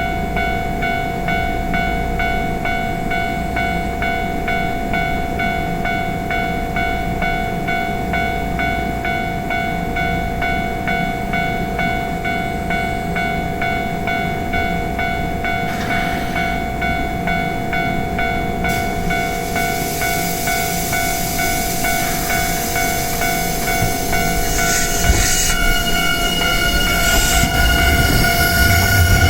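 Japanese level-crossing alarm bell ringing in a steady, rapid, evenly repeating pattern. From about two-thirds of the way through, the noise of an approaching electric train builds and grows louder, with a rising whine near the end.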